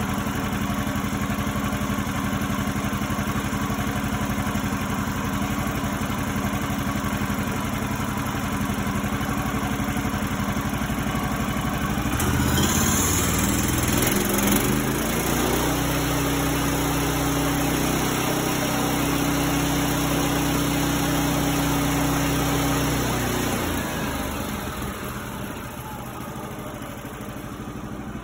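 Kohler engine of a Woodland Mills HM130Max sawmill running at a steady idle while warming up; about twelve seconds in it revs up to a higher steady speed for several seconds, then drops back and runs more quietly near the end.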